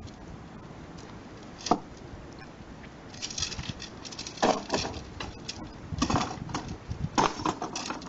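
Irregular handling noises: short clicks, taps and light rattles in small clusters, with gaps between them.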